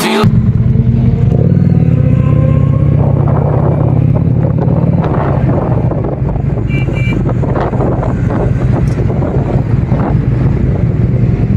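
Motorcycle engine running steadily as the bike is ridden away and out onto the road, recorded from on the bike, with rough wind noise over the microphone. Two short high beeps sound about seven seconds in.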